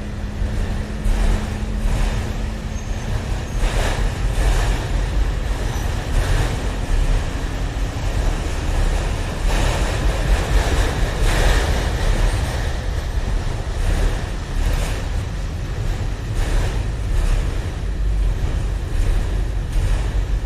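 Freight train rolling past, a steady low rumble with irregular knocks and clanks from the cars.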